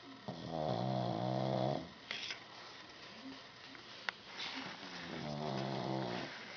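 A sleeping pug snoring loudly: two long, low snores about four seconds apart, with a short breath between them.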